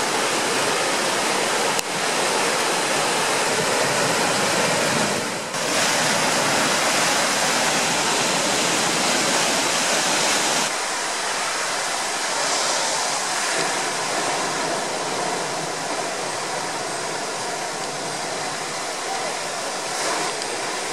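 Flash-flooded mountain river of muddy brown water rushing and churning over rocks and down a stepped weir: a steady rush of water with no breaks, dipping briefly about five seconds in and a little quieter after about ten seconds.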